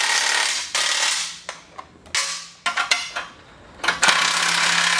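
Cordless impact driver with a socket running in about five short bursts, driving M8 bolts and nylock nuts tight against a steel plate.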